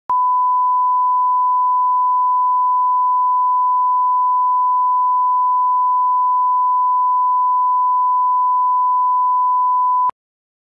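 Steady 1 kHz line-up test tone, the reference tone that goes with colour bars for setting audio levels, held at one pitch and cutting off suddenly near the end.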